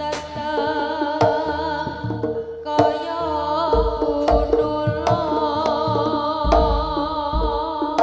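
Live jaranan music, an East Javanese gamelan ensemble playing fast: sharp drum strokes over ringing metal percussion, with a wavering melody line above. Deep low hits come in from about four seconds in.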